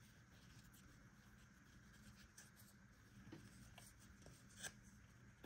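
Faint soft clicks and rustles of a handful of trading cards being thumbed through, one slightly louder click near the end, over near-silent room tone.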